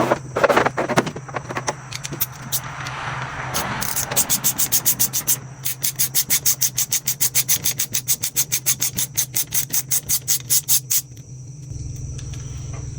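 Ratchet wrench clicking fast and evenly, about five clicks a second, as nuts are undone to take off a two-stroke dirt-bike cylinder; the clicking stops about eleven seconds in. Before it come a few tool knocks and a scraping rub.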